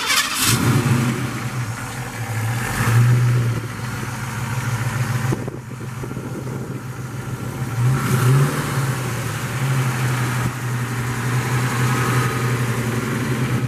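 Fuel-injected Shelby 351 V8 idling steadily, blipped to brief revs about three seconds in and again about eight seconds in.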